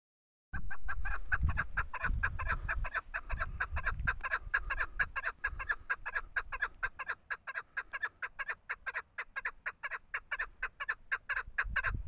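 Female chukar partridge (chakor) calling: a rapid run of short clucking notes, several a second, starting about half a second in and going on without a break.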